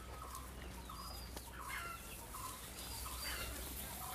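Birds calling faintly, a run of short repeated calls, over a steady low hum.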